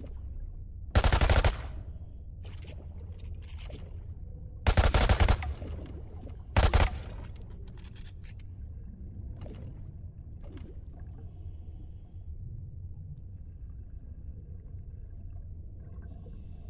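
Sound effect of an underwater submarine gun firing: three loud bursts of rapid fire, about a second in, near five seconds and near seven seconds, with fainter bursts after them over a steady low rumble.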